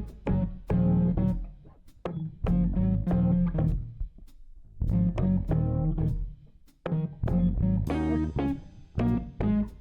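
Background music: plucked guitar and bass playing a short repeating phrase with brief pauses between notes.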